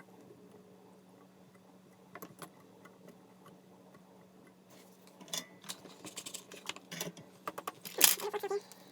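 Light clicks and rattles of small hard parts being handled, starting about five seconds in and getting busier, with one sharper click near the end. A faint steady hum runs underneath.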